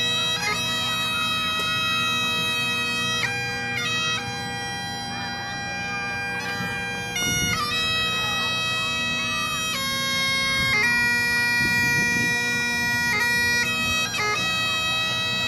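Bagpipes playing a slow melody over a steady drone, each note held a second or more.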